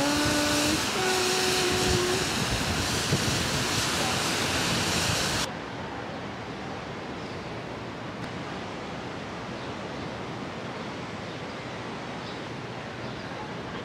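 Steady rushing of ocean surf and wind. About five and a half seconds in it cuts abruptly to a quieter, duller outdoor hiss of wind and distant surf.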